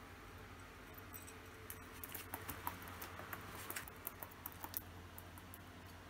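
A cockatiel moving about a tabletop, making a scatter of faint light clicks and taps, most of them in the middle seconds, over a low steady hum.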